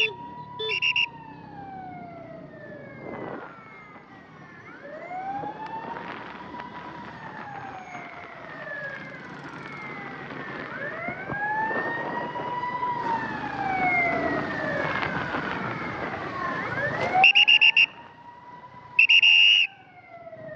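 Ambulance siren wailing in slow rising-and-falling sweeps, one roughly every three seconds, over traffic noise. Short, loud beeps cut in about a second in and twice more near the end.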